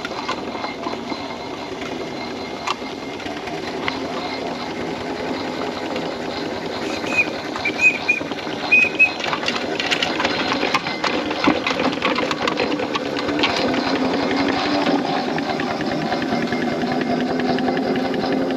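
4-inch scale Foster steam traction engine driving past under steam: a rapid, rhythmic run of exhaust chuffs and mechanical clatter that grows louder as it comes by.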